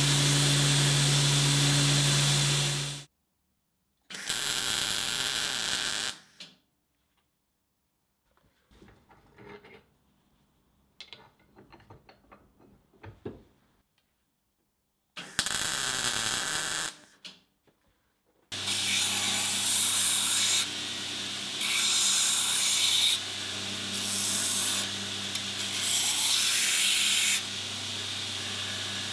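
Belt grinder running with a steady hum, then stopping about three seconds in. A quiet stretch follows, with two short bursts of noise and a few small metallic clicks. In the last ten seconds the grinder runs again, growing louder and softer every second or two as a chrome-plated steel socket is pressed onto the belt in repeated passes.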